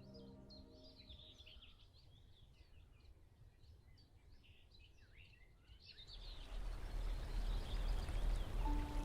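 Birds singing faintly, with a few held music notes dying away in the first second or so. About six seconds in, a steady rushing noise with a low rumble rises and takes over.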